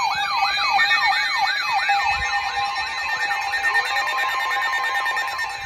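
Electronic siren in a fast yelp, its pitch sweeping up and down about three times a second over steady tones; the yelp grows fainter after about two seconds.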